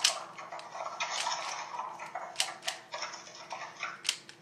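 3x3 Rubik's cube being turned quickly by hand during a scramble: the plastic layers click and rattle in an irregular run, with several sharper clicks.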